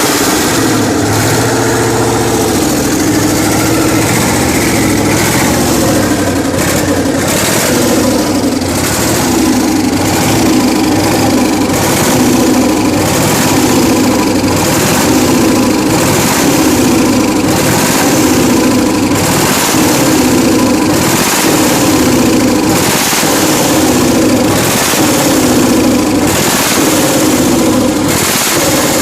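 Freshly rebuilt UD RE8 V8 diesel engine running loudly, its note rising and falling in a repeating cycle about every two seconds.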